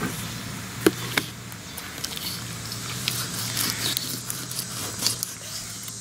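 A bluefish being handled and cut on a fish-cleaning board: two sharp knocks about a second in, then soft wet scraping and crackling as the knife starts the fillet. Under it runs a steady low hum.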